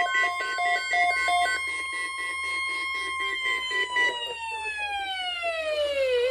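Weather radio alert tone: a steady tone near 1 kHz, with a second radio's pulsing alert beeps over it for the first second and a half. About three seconds in, the tone starts sliding steadily down in pitch.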